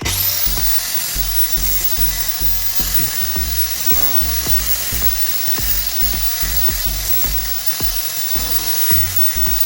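Background music with a steady beat over the high-pitched, steady whine of a grinder grinding the threads off a steel wheel stud.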